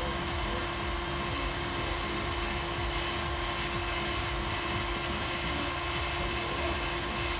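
Electric stand mixer motor running at a steady speed with a steady hum and whine, beating flour into cake batter.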